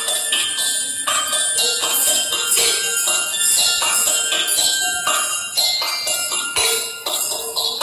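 School bell signalling the start of the day, a run of ringing bell notes in a chiming melody.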